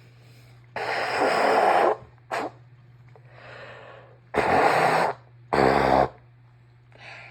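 A congested woman with a cold making messy, wet nasal bursts as she sneezes and blows thick snot out through her nose: a long burst about a second in, a short sniff, then two more bursts close together past the middle.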